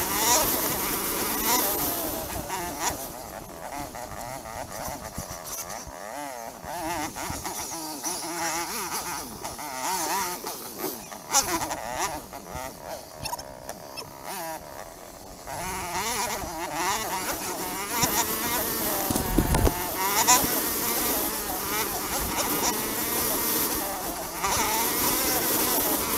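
Dirt bike engine revving up and down while riding, the pitch rising and falling continuously; it eases off through the middle and runs harder again for the last ten seconds.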